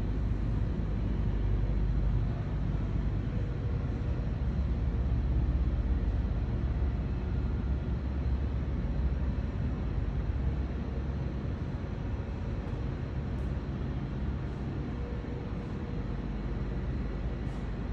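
Steady low machinery rumble and hum of an industrial worksite, with a few faint ticks near the end.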